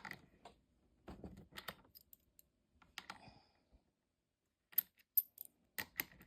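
Clicks and light rattling of a mini chainsaw's plastic and metal parts being handled and slid apart. They come in a few short clusters, with a pause of about a second in the middle.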